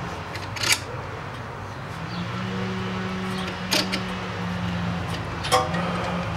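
Steady low hum, with three sharp metallic clicks spaced a second or more apart as a hand screw-type brake caliper piston compressor tool is worked in the caliper.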